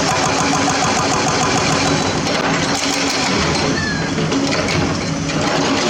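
Diesel engine of heavy construction equipment running steadily with a fast, even chatter.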